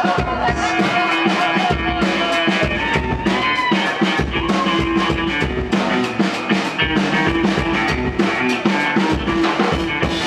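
Live rock band playing an instrumental passage: a drum kit keeps a steady beat under held and sliding electric guitar notes.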